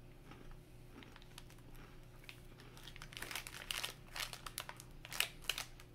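Crinkling of a plastic snack wrapper being handled, a run of sharp crackles starting about halfway in.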